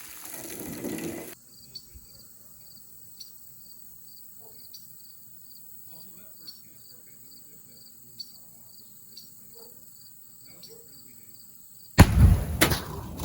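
Crickets chirping steadily in the background, a faint high chirp repeating every half second or so. Near the end a sudden loud blast with a low rumble cuts in.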